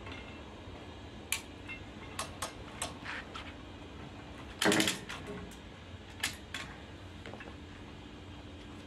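Irregular metal clicks and knocks from the clamps and tensioning gear of a steam-bending jig being worked on a steamed oak plank, with one louder knock about halfway through.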